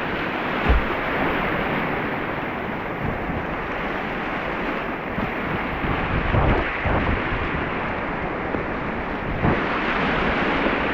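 Rushing whitewater of a river rapid, a steady hiss of moving water, with wind buffeting the microphone in a few low thumps.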